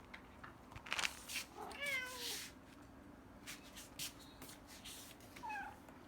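Domestic cats meowing for their food: one drawn-out meow that falls in pitch about two seconds in and a short meow near the end, with scattered soft clicks and rustles between.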